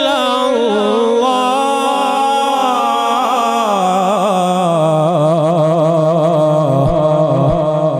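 A male qari reciting the Quran in the melodic mujawwad style, drawing out the word 'rasul' in one long, unbroken, ornamented line. Near the middle the voice sinks to a lower note and holds it with a wavering ornament.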